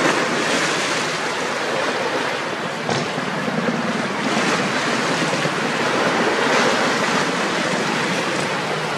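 Small lake waves washing and splashing against shoreline rocks: a steady rushing wash that swells and ebbs in surges.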